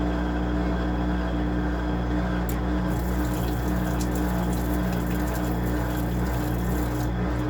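Washing machine running with a steady motor hum; water rushes through it from about three seconds in until shortly before the end.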